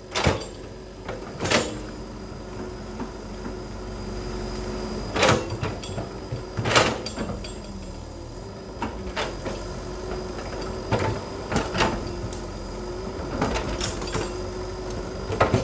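Excavator's diesel engine running steadily, with irregular sharp cracks and clanks about ten times over the span.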